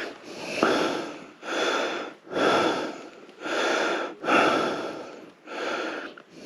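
A person breathing hard into the microphone, a steady rhythm of loud breaths in and out, about one a second.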